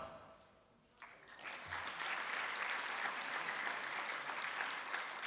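Audience applauding: faint clapping that starts about a second in and goes on steadily.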